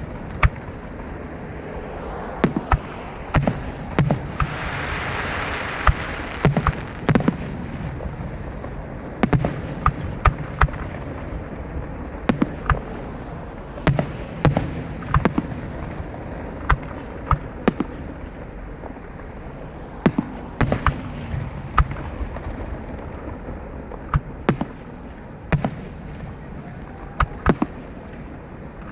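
Aerial fireworks shells bursting in a continuous barrage: sharp reports come irregularly, about one or two a second, over a steady rumble and crackle, with a louder spell of hiss about five seconds in.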